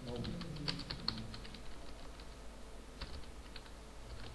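Typing on a computer keyboard: a quick run of keystrokes in the first second and a half, then a few scattered single keys.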